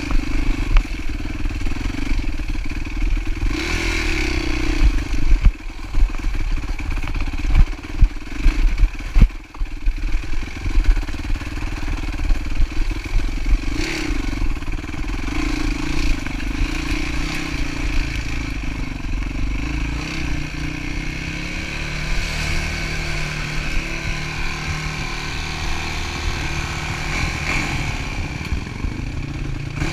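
Dirt bike engine running as the bike rides over rough ground, with sharp clattering knocks over the first ten seconds or so. Later the engine note rises and falls with the throttle.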